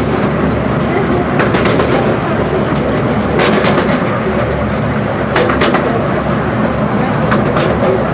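Open passenger carriages of a 15-inch gauge miniature railway running along the track: a steady rumble, with a quick cluster of clicks from the wheels crossing rail joints about every two seconds.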